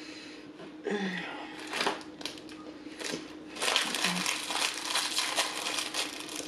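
Clear plastic wrapper of a fortune cookie crinkling as it is handled and pulled open, with a few light rustles at first and dense crackling from about three and a half seconds in.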